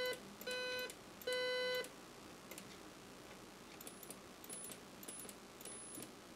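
Amiga 4000 audio test tones played through a small Divoom speaker: three short buzzy beeps of about half a second each in the first two seconds, then faint short high pips with clicks from about four to six seconds in. The sound is kind of tinny, and the left channel is weak because its RCA connector is badly damaged.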